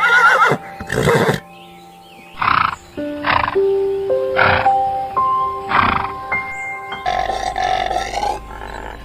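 Background music of held notes stepping in pitch, with several short, loud animal calls over it; the first, right at the start, wavers in pitch.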